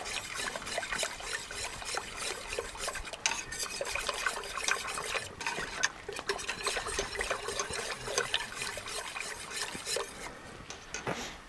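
A spoon stirring a creamy, thickening sauce in a metal pot, scraping and clinking rapidly and irregularly against the pot. The stirring stops about ten and a half seconds in.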